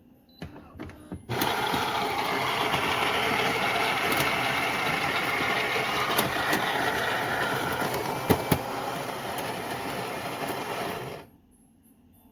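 Philips 4300 Series fully automatic espresso machine running with a loud, steady mechanical noise for about ten seconds. A few clicks come just before it starts, and it cuts off abruptly.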